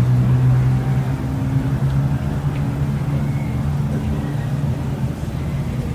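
Street traffic, with a motor vehicle's engine giving a steady low hum that eases off slightly partway through, over a general hiss of road noise.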